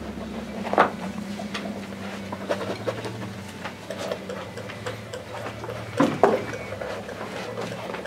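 Palette knife tapping and scraping on a stretched canvas: scattered light knocks and scrapes, the loudest just under a second in and again about six seconds in, over a steady low hum.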